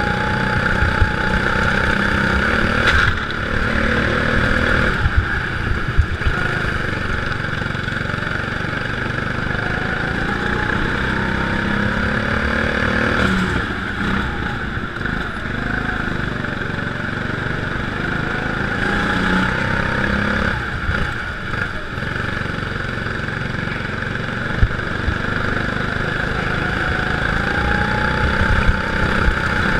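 Go-kart engine running hard under the driver, its note rising repeatedly as the kart accelerates and dropping away as the throttle is lifted, over a steady rushing hiss.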